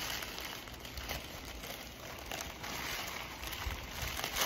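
Packaging wrapping rustling and crinkling as a folded garment is handled and lifted out of a cardboard box, with a sharper crackle near the end.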